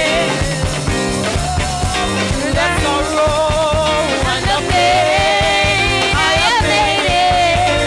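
Live praise-and-worship music: singers on microphones with a band of drum kit and electric guitar, holding sung melody lines over a steady beat.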